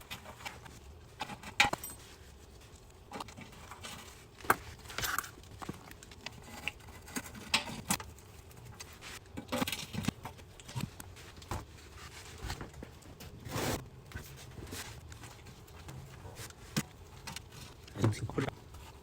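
Irregular light metallic clicks and clinks of hand tools and bolts while the transmission pan is being fastened back on.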